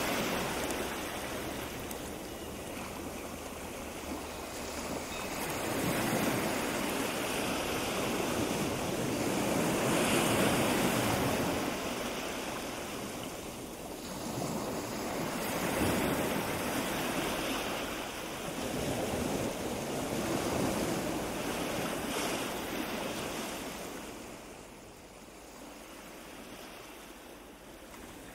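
Mountain wind blowing over the microphone, a rushing noise that swells and fades in gusts every few seconds and dies down near the end.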